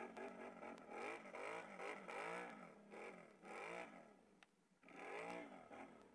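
Can-Am Renegade ATV engine revving up and down in quick surges, about two a second, as it pushes through crusty snow in two-wheel drive, with a short lull about two-thirds of the way through.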